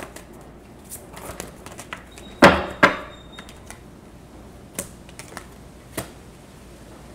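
Tarot cards being handled and laid down on a wooden table: light card clicks and taps, with two sharp slaps about two and a half to three seconds in and a couple of lighter taps later.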